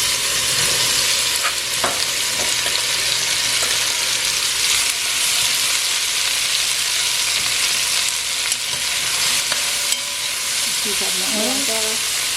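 Sliced okra sizzling steadily in hot vegetable oil in a pot, just tipped in, with a few light clicks from the stirring.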